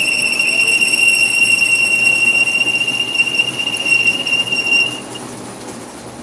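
Lathe facing a metal spacer ring with a tungsten-carbide-tipped tool bit: the cut gives a loud, steady high-pitched squeal over the running machine. The squeal stops about five seconds in as the cut ends, leaving the quieter run of the lathe.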